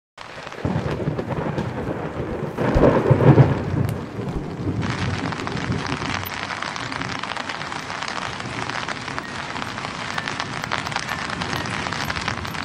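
Rain falling steadily, with a rumble of thunder about three seconds in; after that a steady rain hiss.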